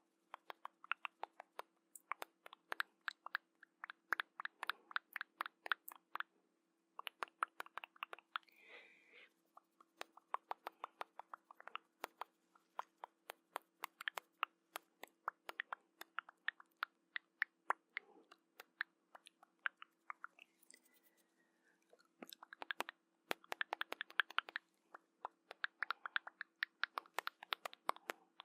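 ASMR dry mouth sounds close to the microphone: rapid tongue and lip clicks in runs of several a second, broken by short pauses, over a faint steady hum.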